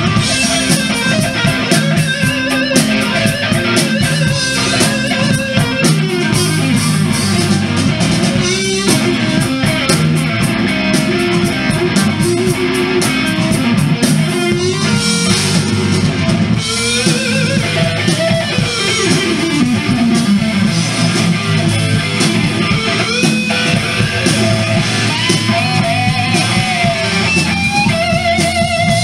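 Live rock band playing an instrumental passage: distorted electric guitars over a drum kit, with a guitar note sliding down in pitch about two-thirds of the way through.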